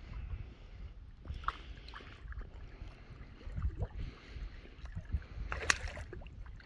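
Wind noise on the microphone, with water lapping at the edge of the dam and a brief sharp sound near the end.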